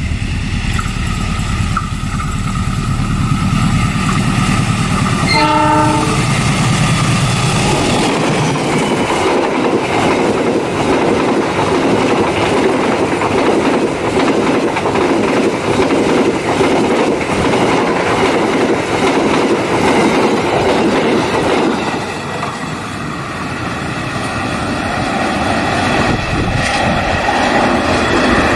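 Diesel locomotive hauling a passenger train approaches with a low engine rumble and gives one short horn blast about five seconds in. The passenger coaches then run past with a rhythmic clickety-clack of wheels over the rail joints and steady rail noise, dipping briefly a few seconds before the end.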